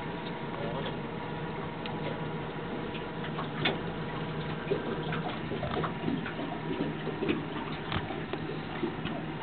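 Water lapping and slapping against a boat's hull, with scattered small splashes and clicks over a steady low hum.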